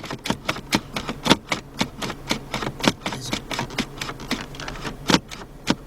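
Rapid, irregular sharp clicks and taps, about four or five a second, over a faint steady low hum.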